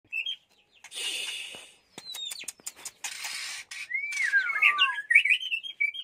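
White-rumped shama calling: a short chirp, then two raspy hissing bursts and a few clicks. About four seconds in comes a clear whistle gliding downward, followed by quick high twittering notes.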